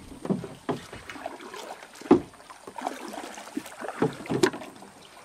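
A hooked giant snakehead (toman) thrashing at the water's surface beside a small boat: irregular splashes and knocks, the loudest about two seconds in and another sharp one near the end.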